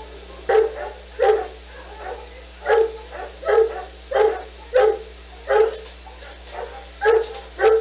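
A dog barking over and over, about one bark every 0.7 seconds, with a few softer barks in between.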